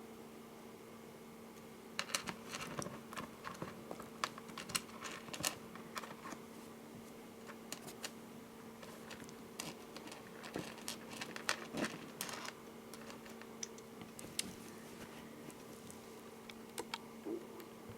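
Light, irregular clicking and tapping of small metal jewelry findings (jump rings, lobster claw clasp and metal connector) as the finished cord anklet is handled, in clusters through most of the stretch, over a faint steady hum.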